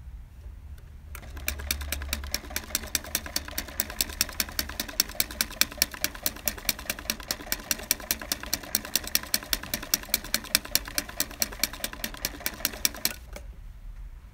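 FlipBooKit flipbook machine flipping its cards, each card snapping past the top catch in an even run of sharp clicks, about four or five a second. The clicking starts about a second in and stops abruptly about a second before the end.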